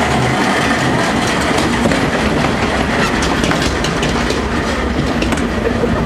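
Log flume lift-hill conveyor belt running as it carries the boat up the incline: a steady mechanical clatter of many small clicks over a low hum.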